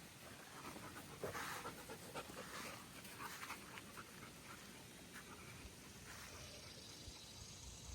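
A dog panting faintly in quick, uneven breaths that ease off about halfway through.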